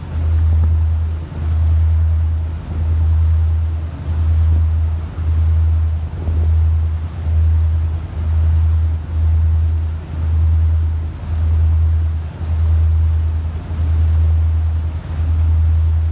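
A motorboat under way: a loud low rumble that swells and dips about once a second, over a wash of water and wind.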